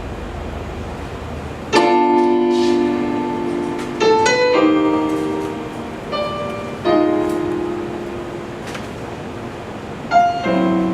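Piano struck in sparse, separate chords and notes, each left to ring and fade: about six attacks, with the first just under two seconds in and the last near the end. A low rumbling noise stops as the first chord sounds.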